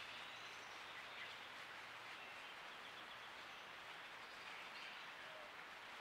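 Faint steady outdoor hiss with a few faint, short, high chirps from birds.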